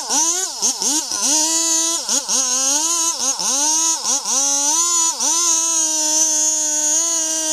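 Chainsaw engine running at high revs, its pitch dropping sharply and coming back up many times in quick succession for the first five seconds, then holding steady.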